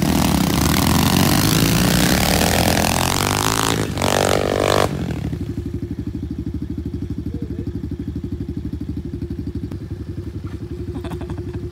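Small four-stroke pit bike engines revving hard, rising and falling, as bikes ride past close by through mud. About five seconds in the sound switches abruptly to a single pit bike engine running at low revs, a steady, dull low putter.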